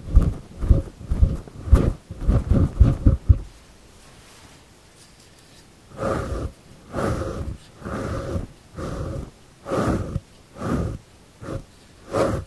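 Fingers rubbing and stroking the long fur of a microphone windscreen right on the microphone, making loud scratchy swishes. Quick strokes about three a second, a pause of a couple of seconds, then slower strokes about one a second.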